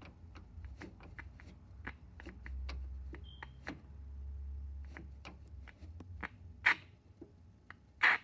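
Scattered clicks and knocks of hands working the knobs and switches of a vintage radio receiver, with a low hum swelling for a couple of seconds in the middle and two louder noisy bursts near the end.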